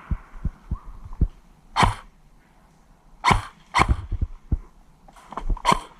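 Footsteps thudding unevenly, with four short sharp cracks of airsoft guns firing: one, then a close pair, then one more near the end.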